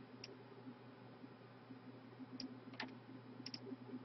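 A few faint computer mouse clicks, about five in all, two of them in quick succession near the end, over a low steady hum.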